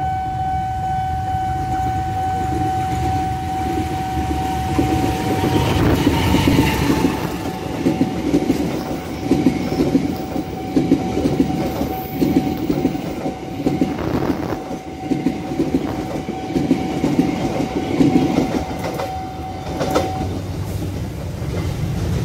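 Passenger train running over a level crossing, its wheels clacking over the rail joints about once a second. Over it the crossing's warning signal sounds one steady tone, which cuts off near the end once the train has passed.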